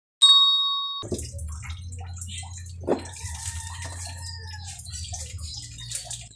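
A bright bell chime sound effect from a subscribe-button animation, cut off about a second in. Then a low steady hum with scattered small clicks and one sharper knock about three seconds in.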